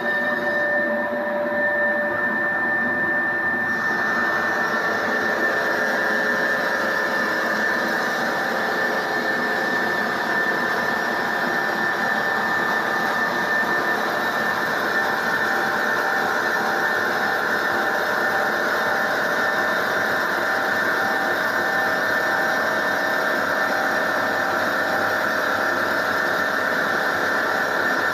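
Marble-cutting machine running with a steady high whine that holds an even pitch and level.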